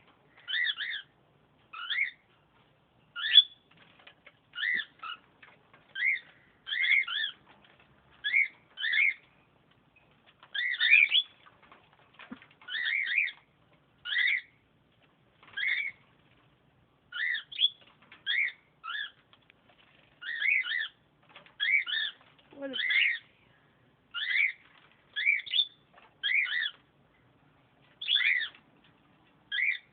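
Lovebird chirping: short, high, repeated chirps about once or twice a second, kept up steadily.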